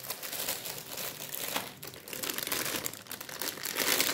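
Bubble wrap and a clear plastic bag crinkling and rustling irregularly as hands unwrap and lift out a plastic toy mask.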